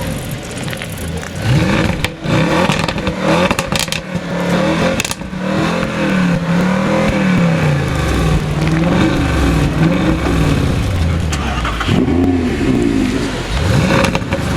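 Audi RS7's twin-turbo V8 being revved hard again and again, its note rising and falling about once a second. Sharp exhaust crackles and pops sound between the revs in the first few seconds.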